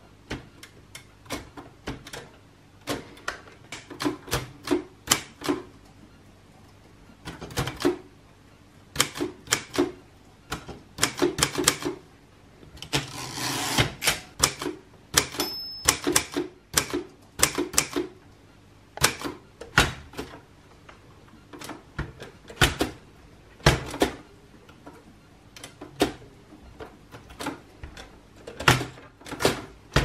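Hermes 2000 manual typewriter being typed on: irregular runs of sharp key strikes with short pauses between them. About 13 seconds in there is a longer rasping slide as the carriage is pushed back for a new line.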